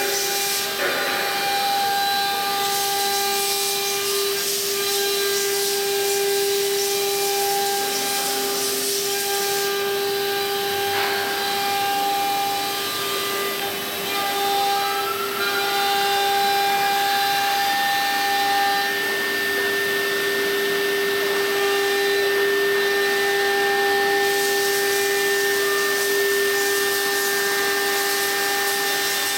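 Pneumatic two-spindle CNC router running, its spindles giving a steady whine over a hissing cutting noise. One tone rises in pitch about halfway through, then holds.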